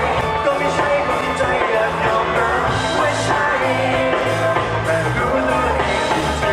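Live band performance: a male vocalist sings through a microphone over electric bass and a steady rock-pop beat.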